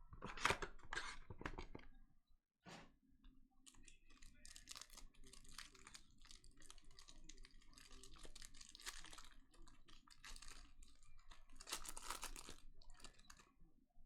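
Trading-card packaging being torn open and handled: wrapper tearing and crinkling in irregular short bursts, loudest in the first two seconds.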